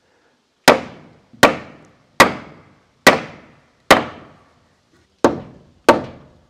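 A hammer striking a wooden roof truss eight times at an even pace, with one longer pause partway through, each blow sharp and trailing off quickly: knocking the truss over into position.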